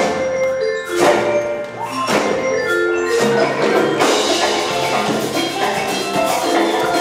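Music led by mallet percussion: ringing pitched notes held over one another, with sharp accented strokes about a second in, two seconds in and again at four seconds.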